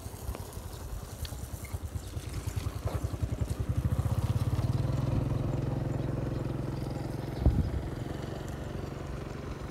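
A small engine's low, rapid puttering grows louder over the first four or five seconds, then slowly fades, as a vehicle passing by would. A single thump comes about seven and a half seconds in.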